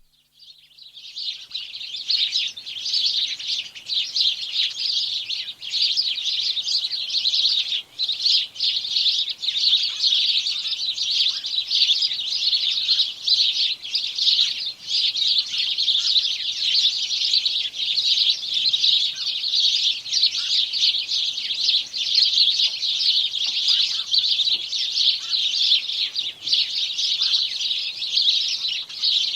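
A chorus of many house sparrows chirping at once, a dense and continuous chatter of short chirps that fades in over the first two seconds.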